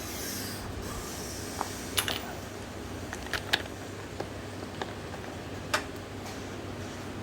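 Scattered light clicks and taps from front-fork parts and tools being handled during fork disassembly, over a steady low hum. There is a brief hiss right at the start.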